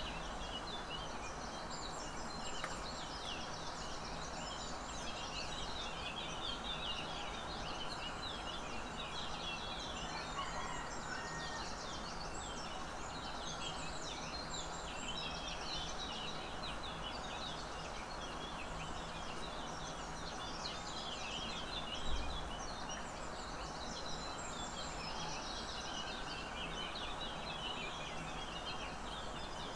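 A dense chorus of birds chirping over a steady outdoor background hiss and rumble, with one brief low thump about 22 seconds in.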